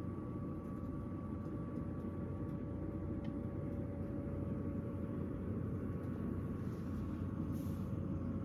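Room heater running: a steady low drone with a faint, even hum tone over it.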